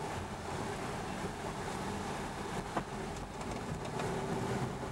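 Inside a moving car: steady engine and tyre noise, with a few sharp knocks and rattles now and then.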